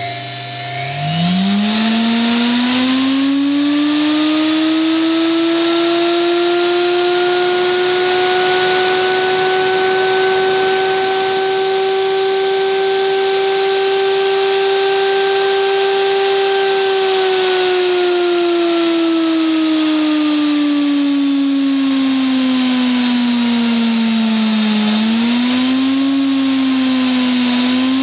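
A 220 V, 13,000 rpm washing-machine universal motor on a speed controller, whining as it spins up quickly to near full speed about a second in. It holds a steady high whine, then is slowly turned down from about two-thirds of the way through, its pitch falling, with a small rise and dip near the end.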